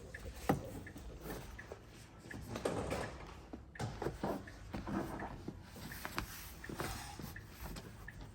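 Scattered clicks, knocks and rustling of car parts being handled and pushed into place, with one sharp click about half a second in.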